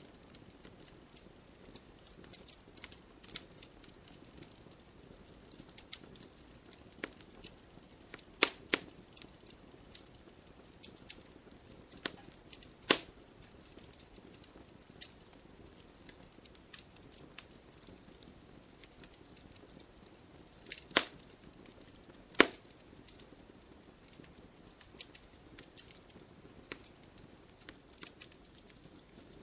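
Wood fire crackling steadily, with scattered small clicks and a few louder sharp pops.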